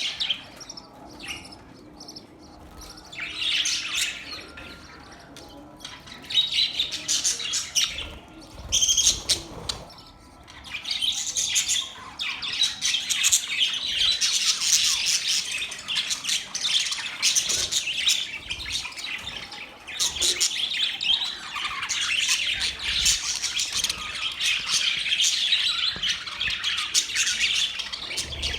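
Budgerigars chirping and chattering, with scattered calls at first that become a dense, continuous chatter of several birds from about ten seconds in.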